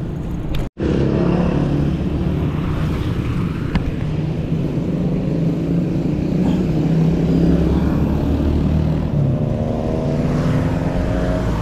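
Road traffic heard while cycling: a motor vehicle's engine runs close by over a steady low rush, and rises in pitch near the end as it speeds up. The sound drops out for an instant under a second in.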